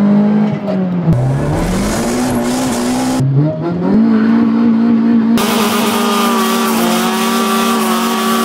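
Honda Civic's four-cylinder engine revving hard at high rpm, its pitch climbing twice as it pulls through the gears, in short edited cuts. For the last three seconds it holds high revs over a steady hiss of spinning tyres in a burnout.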